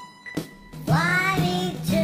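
Background music: a song with a sparse beat, and a singing voice that comes in about a second in.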